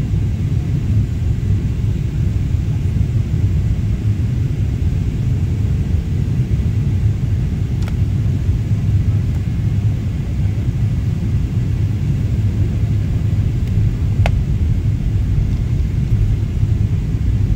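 Steady low rumble inside the cabin of a Boeing 777-300ER airliner in flight on its approach: engine and airflow noise heard from a window seat, with two faint clicks.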